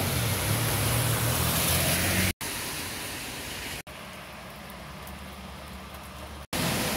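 Rain on a city street with car tyres hissing on wet asphalt and a low engine rumble from passing traffic. About two seconds in the sound cuts off abruptly and comes back as a quieter, steady rain hiss, with two more abrupt cuts later.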